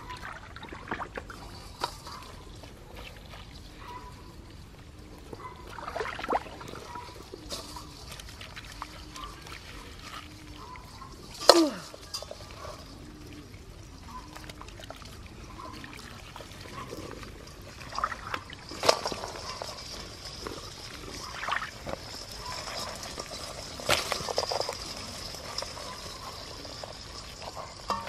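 Gloved hands digging and squelching through wet mud and muddy water in a crab burrow. Scattered sharp clicks and knocks run through it, the loudest about halfway.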